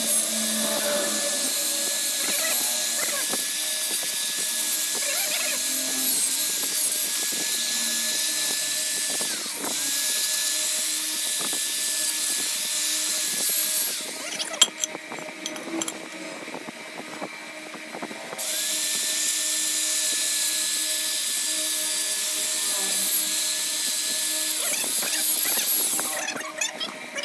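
Electric drill spinning a wire brush against a motorcycle engine's aluminium crankcase, scrubbing off caked black oil sludge and carbon: a steady motor whine with a scraping hiss. It breaks off for a moment about nine seconds in, stops for about four seconds in the middle, then starts again and stops near the end.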